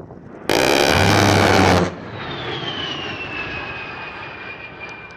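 A-10 Thunderbolt II's 30mm GAU-8/A Avenger rotary cannon firing one loud burst of about a second and a half, a buzzing roar that starts and cuts off abruptly. After it, the jet's turbofan engines go on with a whine that falls in pitch as the aircraft passes.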